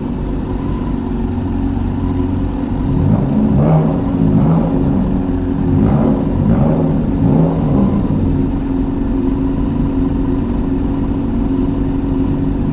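Engine idling steadily, blipped about five times in quick succession from about three to eight seconds in, each rev rising and falling in pitch, then settling back to idle.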